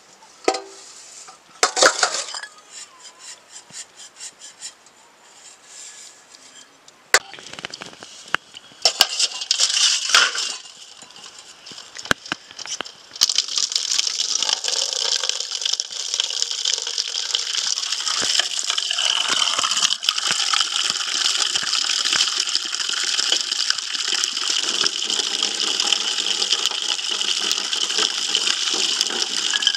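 Cookware clinking, knocking and scraping. About halfway through, a loud steady hiss sets in and continues.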